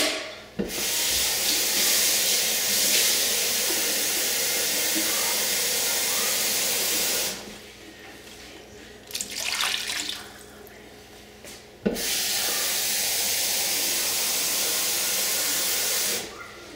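Kitchen tap running into a container, filling it with water twice: a steady rush for about seven seconds, a pause, then about four seconds more, stopping shortly before the end.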